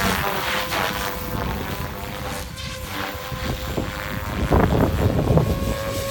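SAB Goblin 700 electric RC helicopter flying, a steady whine from its motor and rotor head, with gusty wind buffeting the microphone.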